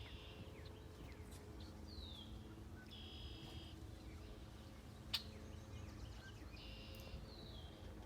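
Faint bird calls: two short downward-sliding notes and two buzzy, held notes, over a quiet outdoor background. A single sharp click about five seconds in.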